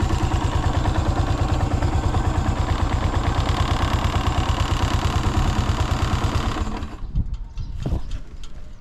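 1997 Yamaha SR400's air-cooled single-cylinder four-stroke engine idling with an even, steady beat, then switched off about seven seconds in; a few faint knocks follow. The engine runs without abnormal noise, as the seller puts it.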